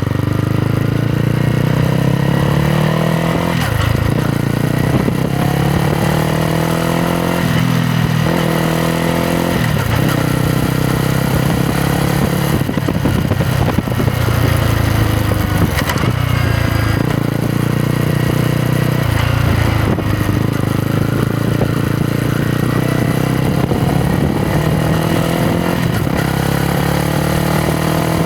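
Yamaha MT-125's single-cylinder 125 cc four-stroke engine and exhaust while riding, the revs climbing and dropping back again and again as the bike accelerates and shifts through the gears.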